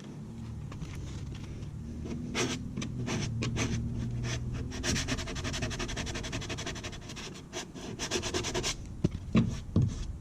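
Sandpaper rubbed by hand in rapid back-and-forth strokes, smoothing the edge of a freshly cut 1-inch hole-saw hole. The strokes stop shortly before the end, followed by a few sharp knocks.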